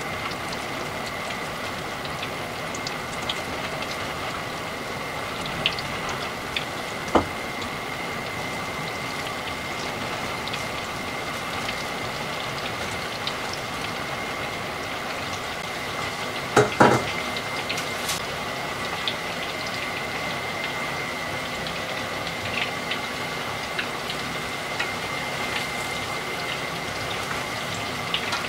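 Chicken pieces coated in potato starch deep-frying in hot oil: a steady sizzle of bubbling oil as the pieces go in and begin to cook. A few sharp pops stand out, the loudest about 17 seconds in, and a steady high-pitched tone runs underneath.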